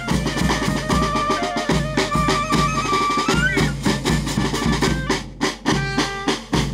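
Charanga band of wind instruments with bass drum and snare playing an upbeat tune, closing on a few heavy accented hits and stopping abruptly near the end.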